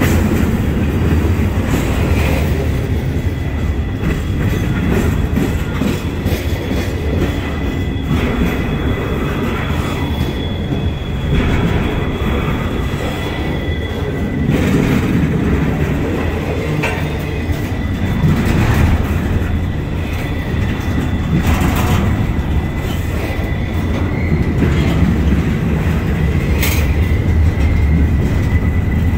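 Double-stack intermodal freight train's well cars rolling past close by: a steady, heavy rumble of steel wheels on rail with scattered clicks over the rail joints, and a thin, high wheel squeal that fades and returns.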